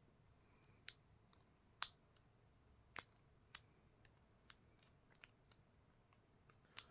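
Small, faint, irregular clicks of a diamond pick working the pin stack of a cheap four-pin marine lock under top-of-keyway tension, as the pins set. About a dozen sharp clicks, the loudest about two and three seconds in.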